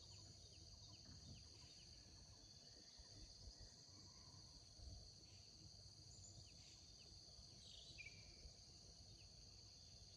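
Faint, steady, high-pitched drone of insects in the grass, with a few short, faint bird chirps scattered through it.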